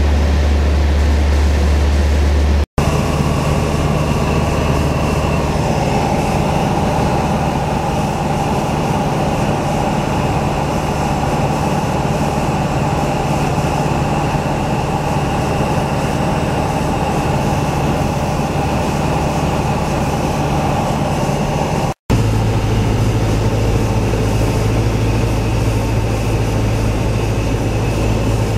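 Light aircraft's engine and propeller droning steadily, heard from inside the cabin. The sound cuts out for an instant twice, about three seconds in and about three-quarters of the way through, and the pitch of the drone shifts after each break.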